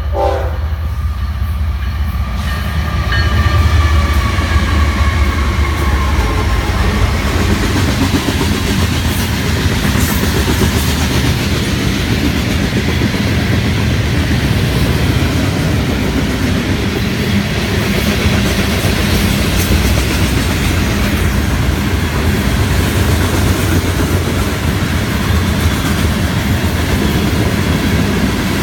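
Freight train passing: the diesel locomotive's horn cuts off just as it starts, the lead locomotives go by with a falling pitch, and the long train of freight cars then rolls past with steady wheel-on-rail noise and clickety-clack.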